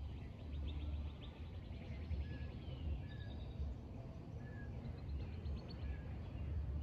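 Outdoor ambience of birds singing: two fast trills and a few short whistled notes, over a low steady rumble.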